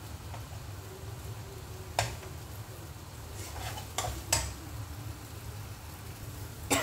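Spatula stirring chilli-tomato sambal paste in a frying pan over a gas flame, with a faint sizzle and a few sharp knocks of the spatula against the pan, at about two and four seconds in and near the end.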